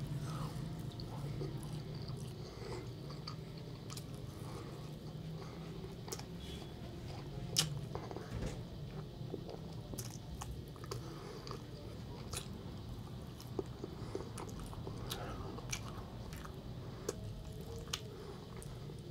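A person chewing and eating mouthfuls of rice and braised meat, with scattered small clicks of a spoon and fingers against a plastic takeaway tray, over a steady low hum.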